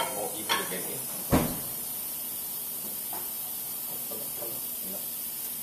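A single sharp metallic clunk about a second in, with a lighter click just before it, from the engine hoist and its lifting chains as the hung engine is shifted.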